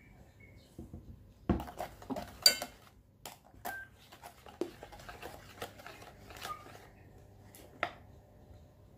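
A set of plastic measuring spoons clicking and knocking against a mixing bowl as batter is scooped, an irregular run of light knocks and clatters, the loudest about two and a half seconds in.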